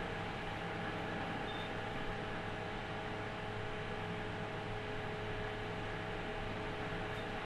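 JR Central 313 series electric train running at a steady speed, heard inside the passenger cabin of a motor car: a constant rumble of wheels on rail with a few steady whining tones over it.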